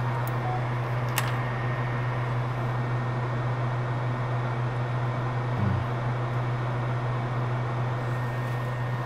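Steady low electrical hum with an even fan-like hiss from running bench equipment, and a single faint click about a second in as the chip is set down with tweezers.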